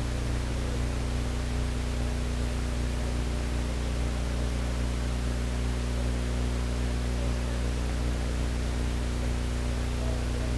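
Steady electrical hum with several low droning tones under a constant hiss, unchanging throughout.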